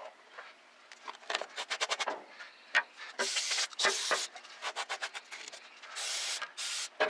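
Aerosol can of brake cleaner sprayed in four short hissing bursts, after a run of quick clicking taps. It is being sprayed to wash spilled brake fluid off before it eats the paint.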